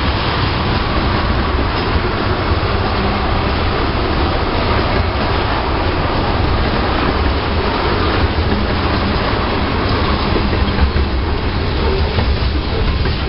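Freight train rolling past: a steady rumble and rattle of cars on the rails, with no break for the whole stretch.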